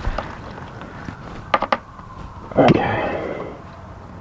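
Fuel hose being pushed onto the outlet pipe of a new fuel filter/pressure regulator: a few quick clicks, then a louder squeaky scrape about two and a half seconds in.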